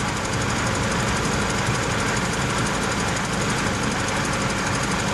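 Mazda 626 engine idling steadily.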